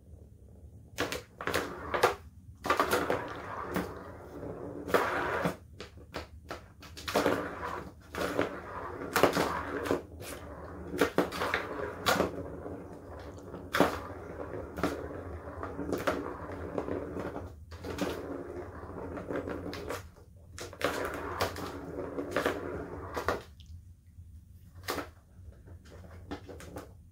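A plastic ball rolling and rattling around the track of a Turbo Scratcher cat toy, batted again and again by a cat's paw. Rattling runs of up to a second alternate with sharp clicks and knocks. The clatter stops near the end, with only a couple of single clicks after.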